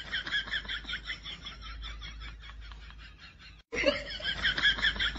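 Rapid, high-pitched snickering laughter in quick short bursts, about five a second. It breaks off briefly about three and a half seconds in and starts again.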